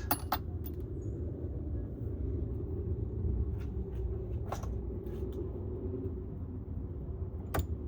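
A steady low rumble, with several short sharp clicks or knocks spread through it, one near the start, a few in the middle and one near the end.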